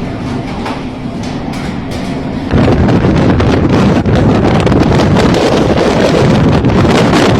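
Storm wind buffeting the microphone at sea, a loud rushing noise that jumps suddenly much louder about two and a half seconds in.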